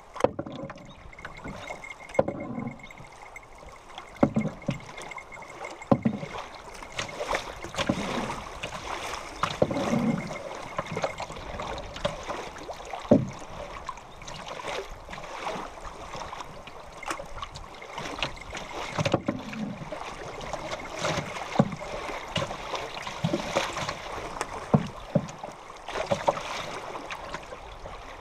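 River water rushing and slapping against the bow of a moving canoe on fast, choppy current, with irregular splashes and hull slaps.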